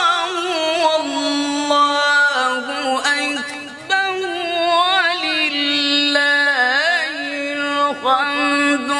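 A man reciting the Qur'an in the melodic mujawwad style, drawing out long held notes with rapid wavering ornaments.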